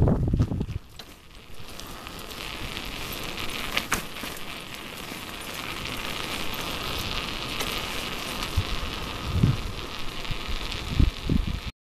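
A steady, high-pitched outdoor chorus, most likely calling insects, swelling slightly over several seconds. A loud low rush on the microphone fills the first second, and a few low thumps come near the end before the sound cuts off.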